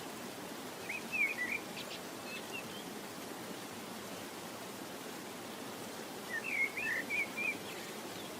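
Steady background hiss with two short bursts of bird chirping, about a second in and again around six seconds in.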